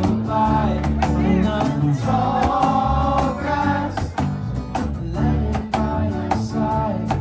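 Live band playing a song, a sung melody over a full band with drums keeping a steady beat.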